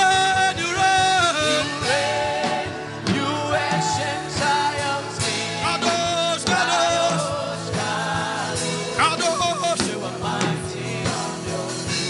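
Worship music: voices singing long held, sliding notes over instrumental backing with a steady percussion beat.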